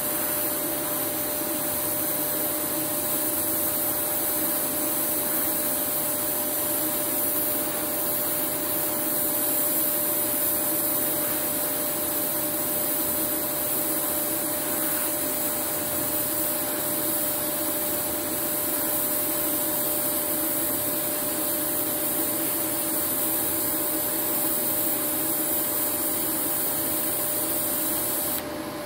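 TIG welding arc burning steadily on steel plate, fed at about 125 A from an inverter TIG welder with the torch carried along by a motorised track carriage: a continuous high hiss with a constant tone under it. The hiss cuts off suddenly just before the end as the arc goes out.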